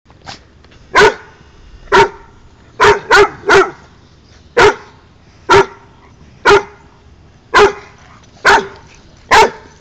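A dog barking at another dog, wanting to play: single sharp barks about once a second, eleven in all, with a quick run of three about three seconds in.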